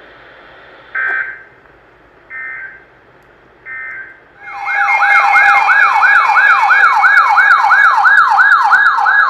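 Three short bursts of EAS end-of-message data tones from a NOAA weather radio. Then, from about four and a half seconds in, a loud electronic siren-style alert tone starts, sweeping up and down about three times a second over a steady tone, like a weather alert radio's alarm going off for another alert.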